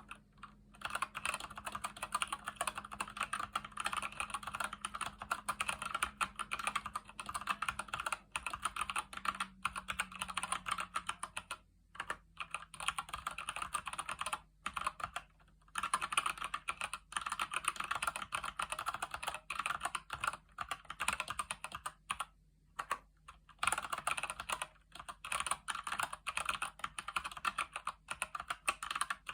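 Continuous fast typing on a Keychron C1 mechanical keyboard with Gateron Brown switches: a dense stream of key clicks with a few short pauses.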